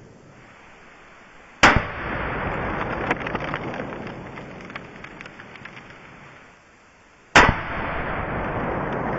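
Two rifle shots about six seconds apart from a Mosin Nagant firing steel-core 7.62x54R rounds at a steel plate. Each is a sharp, loud crack that trails off over several seconds.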